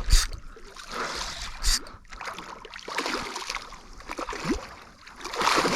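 Water splashing and sloshing around a small boat, with two short sharp splashes or knocks in the first couple of seconds and a louder burst of splashing near the end.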